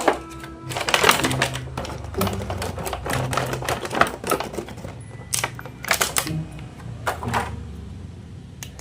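Rapid clicking and rattling of toy figures and their packaging being handled, in clusters with short pauses between.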